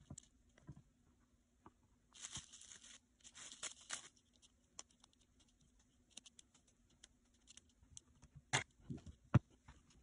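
Faint handling sounds of clay crafting on a cutting mat: two short rustling, tearing-like noises about two and three and a half seconds in, scattered light clicks, and two sharper taps near the end, over a faint steady hum.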